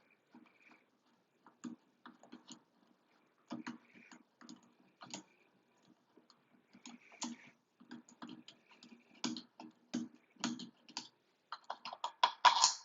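Irregular light clicks and taps of a screwdriver and metal faucet faceplate parts being handled, with a louder cluster of knocks near the end.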